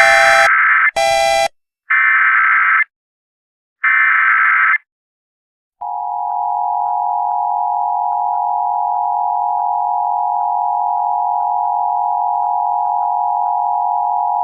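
Emergency Alert System AMBER Alert tones: four short buzzy data bursts about a second apart, then, about six seconds in, the steady two-tone EAS attention signal that announces the alert message.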